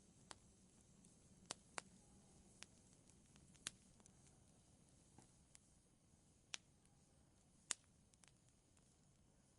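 Wood fire crackling in a fireplace: about ten sharp, irregular pops and snaps over a faint low hiss, the loudest pop about three quarters of the way through.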